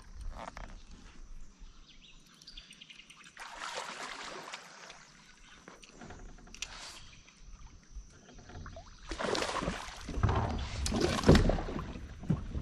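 Water and handling noise from a fishing kayak on the water: irregular rushes of sloshing noise come and go, and they are loudest in the last three seconds.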